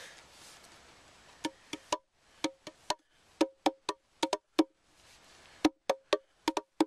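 Meinl Bongo Cajon, a wooden box drum played on the lap, struck with the fingertips. Short, sharp, woody taps in an uneven bongo-style rhythm begin about a second and a half in, each with a brief pitched ring.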